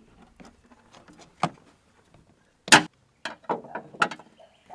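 Hands pushing a taped cable through a rubber firewall grommet: scattered clicks, rubs and knocks, with one sharp clack a little past halfway and a quick cluster of smaller knocks after it.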